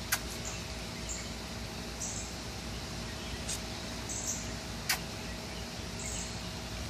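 Outdoor background noise with a faint steady hum, a few short high chirps scattered through, and a sharp click about five seconds in.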